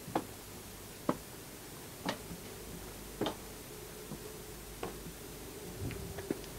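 A few faint, short knocks or ticks, roughly one a second at first and then more spaced out, over quiet room tone.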